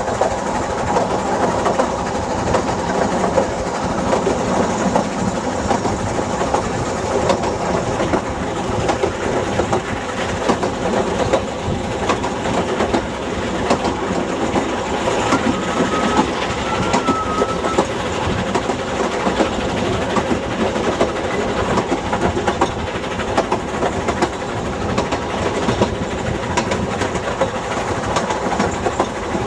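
Narrow-gauge steam train on the move, heard from a carriage window: the coaches rattle and clatter steadily over the track as the Double Fairlie steam locomotive works the train uphill. A brief faint squeal comes about halfway through.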